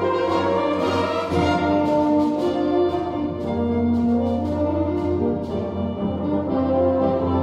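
Fanfare band of saxophones, flugelhorns, horns and low brass playing held chords with moving inner lines; a low bass note comes in about a second in and sustains.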